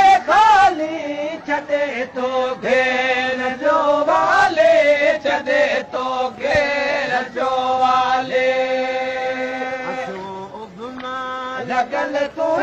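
Men chanting a Sindhi moulood, a devotional chant, in drawn-out melodic lines with a long held note about two-thirds of the way through.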